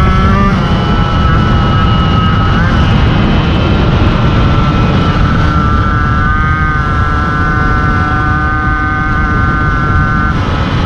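MBK 51 moped's 50cc two-stroke engine running at steady high revs while riding, its note dipping briefly near the start and again near the end. Heavy wind rumble on the microphone.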